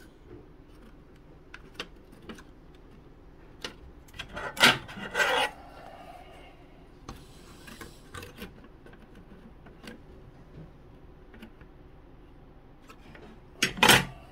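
Workbench handling sounds: scattered light taps and clicks as the thin laser-cut wooden frame and a steel ruler are handled. There are louder knocks about four and a half to five and a half seconds in and again near the end.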